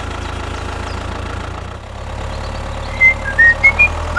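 An engine idling steadily with an even low hum. Near the end a quick run of short, loud, rising chirps sounds over it.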